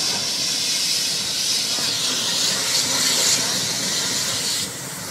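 Steady, loud hissing rush from a fire hose stream and the flames of a car-fire training prop being attacked by firefighters; the hiss drops off suddenly near the end.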